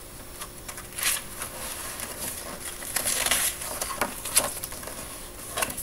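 Pages of a large paperback picture book being turned and handled: paper rustling and sliding, with several short flicks and a longer rustle about three seconds in.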